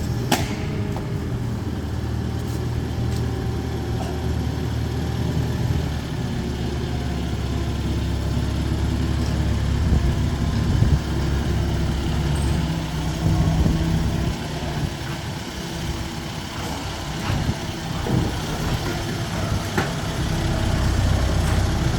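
A steady low machine rumble, like an engine or large motor running continuously, with a few faint knocks.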